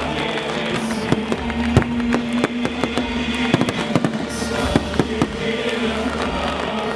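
Fireworks display going off, a rapid irregular series of sharp bangs and cracks, over loud music playing through speakers.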